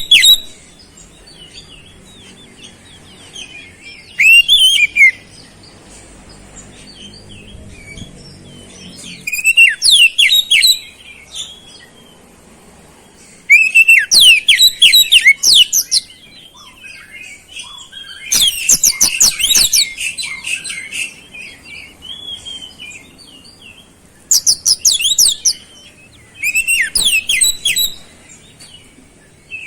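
Oriental magpie-robin (kacer) singing in loud, rapid phrases of sweeping high whistles and trills every few seconds, its song filled with mimicked flowerpecker (cabe-cabean) calls. The densest, loudest phrase comes about two-thirds of the way through.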